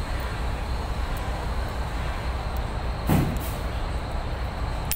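Steady low mechanical rumble, with a single thump about three seconds in and a sharp click near the end.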